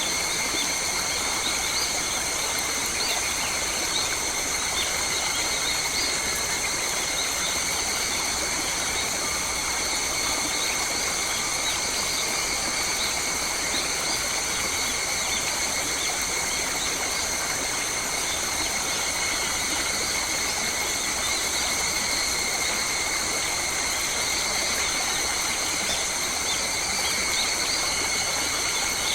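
Forest ambience: a steady high-pitched insect chorus holding several even tones, with faint bird chirps over it.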